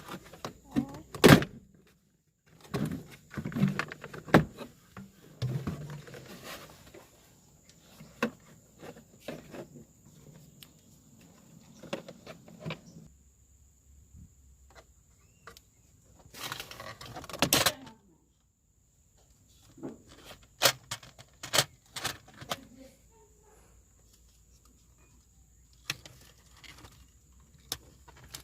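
Scattered clicks, knocks and thuds of car interior parts being handled, with a louder scraping rustle lasting about a second roughly two-thirds of the way through.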